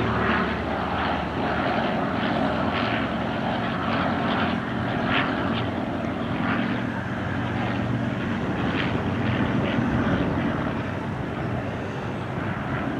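Piston engines and propellers of a Fokker Dr.I triplane and Fokker D.VII biplane in flight, a steady drone.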